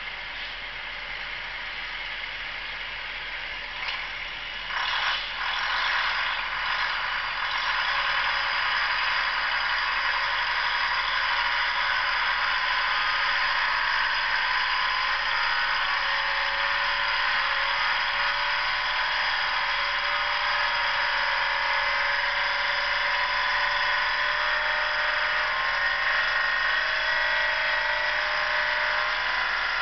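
Detroit Diesel 6-71 two-stroke engine of a 1954 Euclid rock truck running under load with a log trailer. A few knocks sound around five seconds in, then the engine gets louder and runs steadily.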